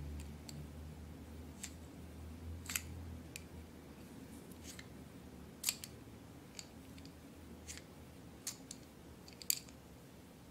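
Small plastic toy charm and its metal strap fitting handled between fingers: irregular light clicks and taps, the two sharpest about halfway through and near the end.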